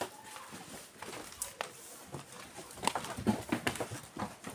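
Goats' hooves knocking and scuffing on a raised wooden slatted floor as the herd moves about the pen, a quick run of sharp knocks that is busiest about three seconds in.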